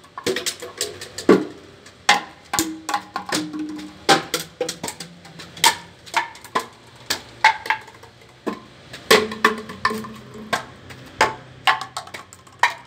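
Plastic bottles being kicked one after another, knocking over and clattering on a concrete floor: a rapid, irregular run of sharp hollow knocks.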